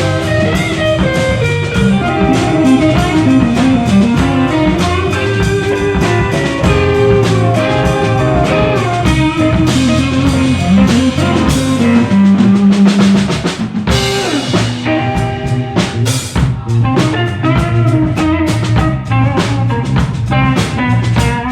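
Live blues band playing an instrumental passage: electric guitar and electric bass lines over a drum kit, with a few accented hits and short breaks partway through.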